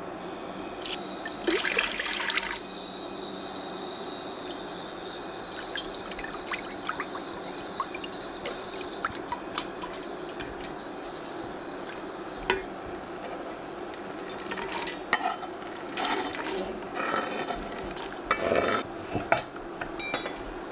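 Water pouring and splashing in a few short spells, with scattered light clicks in between.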